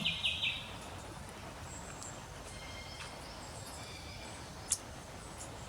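Quiet backyard ambience with faint bird calls: a quick run of high chirps right at the start, then a few scattered faint high notes. A single sharp click sounds about three-quarters of the way through.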